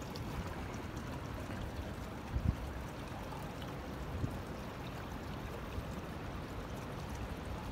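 Rain-swollen creek water running steadily, pouring past a culvert pipe, with two brief low thumps about two and a half and four seconds in.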